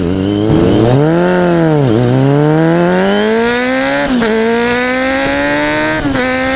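Honda Hornet 250's inline-four engine riding away: it revs up and falls back once, then climbs steadily in pitch under acceleration, with an upshift about four seconds in and another near the end.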